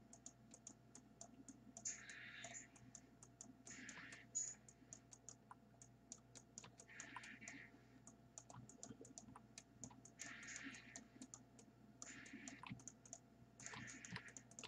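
Near silence with faint, rapid clicking and short rustles every couple of seconds: a computer mouse and keyboard being worked at a desk.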